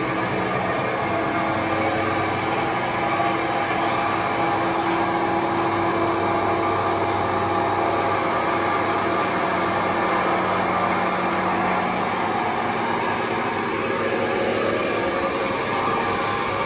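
A 16-ton generator rotor spinning steadily on a soft-bearing balancing machine during a balancing run, belt-driven by an electric motor: an even running whir with a thin high whine over it.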